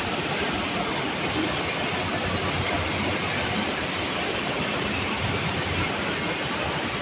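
Steady rushing din of a working sugar mill: its machinery and motors running, with steam venting, an even noise without distinct beats or knocks.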